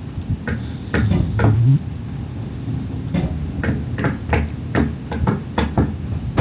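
Sleeping miniature schnauzer snoring: a low grunting snore about a second in, then a run of short, irregular sharp snorts and snuffles.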